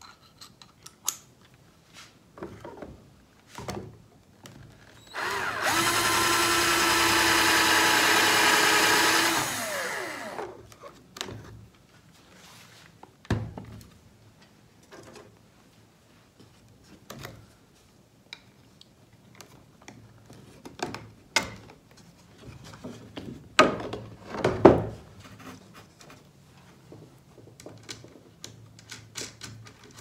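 A cordless drill runs steadily for about five seconds, then winds down as the trigger is released. Afterwards come scattered clicks and a few sharper knocks of metal parts being handled on a wooden bench.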